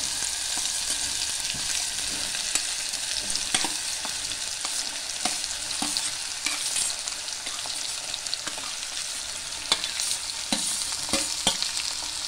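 Chopped sponge gourd sizzling in hot oil in a metal pot as more pieces are tipped in and stirred: a steady frying hiss with scattered light clicks of the metal plate and spoon against the pot.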